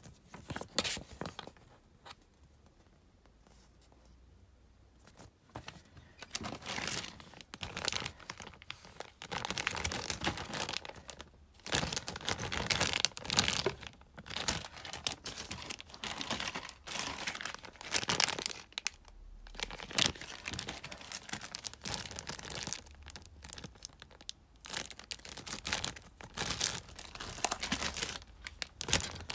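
Clear plastic bags around a model kit's parts sprues crinkling as they are handled, in irregular bursts of rustling with a quieter stretch a few seconds in.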